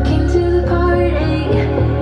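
Music playing through a Samsung HW-C450 2.1-channel soundbar and wireless subwoofer, a pulsing bass line under melodic instrumental tones.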